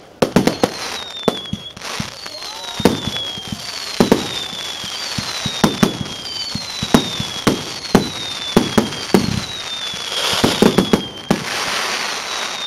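Aerial fireworks going off: repeated sharp bangs of bursting shells over a regular run of falling whistles, about one every second and a half, from whistling shots. Near the end there is a denser stretch of crackle.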